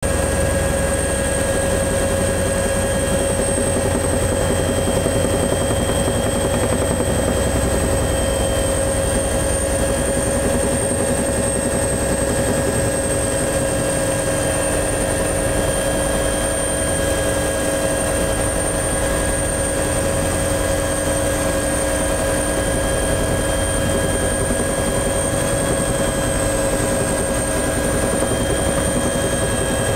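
Helicopter in flight heard from inside the cabin: a steady deep rotor drone with several constant whines above it, one of them high-pitched.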